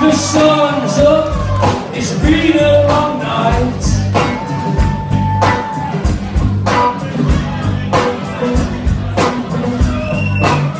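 Live rock band playing: a male singer over strummed acoustic guitar, a second guitar and a drum kit, with a sung note held for a couple of seconds near the middle.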